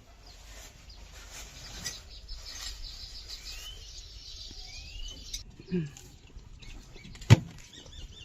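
Scattered faint bird chirps over low background noise, with one sharp click about seven seconds in.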